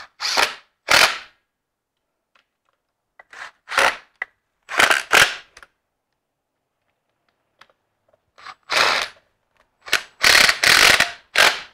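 Cordless drill driving wood screws down in a series of short bursts, each under a second, with pauses between them. The screws fasten a pole's base flange to a platform board and are being tightened fully. The closest, loudest run of bursts comes near the end.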